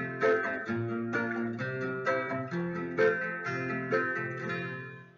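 Instrumental ending of a song played on a plucked string instrument: a steady run of chords at about two a second, no voice, dying away near the end.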